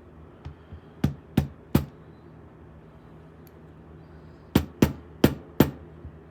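Sharp hard knocks, three in a quick run and then four more, as the pins are knocked out of a Medeco lock cylinder while it is being taken apart, with a couple of faint small clicks before them.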